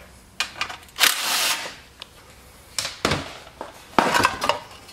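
Clinks, knocks and a brief scrape of metal parts and tools handled on a metal workbench as the blower shroud is worked off a small two-stroke engine, with sharper knocks near the end.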